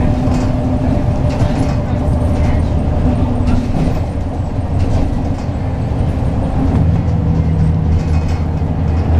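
Inside a 2004 Eldorado EZ-Rider II transit bus under way: its Cummins ISB six-cylinder diesel and Allison automatic running steadily with road noise, and short rattles from the cabin now and then. A lower steady hum comes in about seven seconds in.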